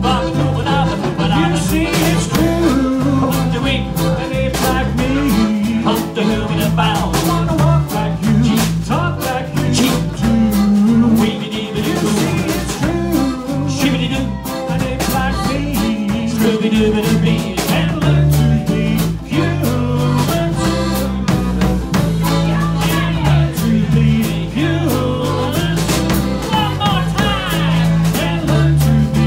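Live band playing an upbeat swing-style number on accordion, electric bass guitar, acoustic guitar and ukulele, with drums keeping time.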